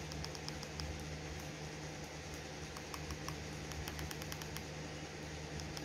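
Faint clicking of TV remote-control buttons in two short runs, about half a second in and again around four seconds in, over a steady low hum.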